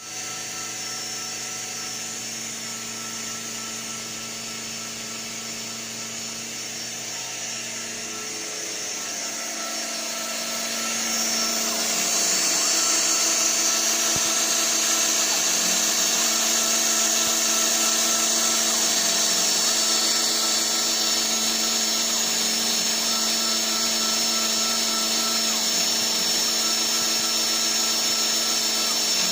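Proxxon MF 70 micro milling machine, converted to CNC, running: a steady motor whine that grows louder from about eleven seconds in, with a tone that comes and goes every couple of seconds.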